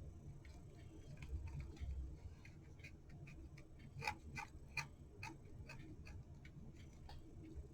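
Light clock ticking, a few quick ticks a second, loudest about four to five seconds in, with a couple of soft low bumps from handling.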